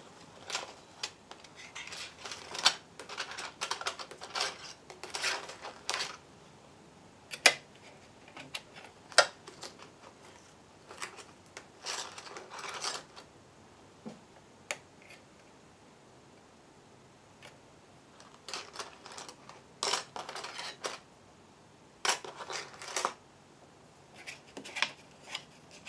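Thin metal die-cutting dies clicking and clinking against each other and on the work surface as they are sorted and placed by hand, with rustling, in irregular bursts and a pause midway.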